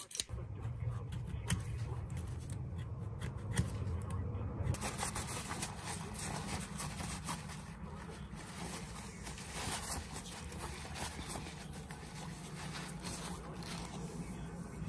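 Small handling noises of a steel pocket knife being worked on: faint irregular metal clicks and the rub of a shop towel wiping the knife, over a steady low hum.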